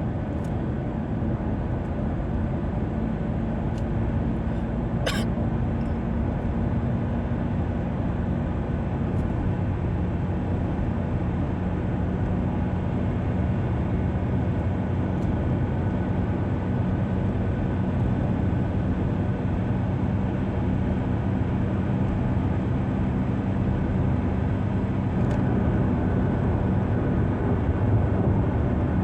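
Car driving at speed on a highway: steady engine hum and tyre and road noise. A brief sharp squeak sounds about five seconds in.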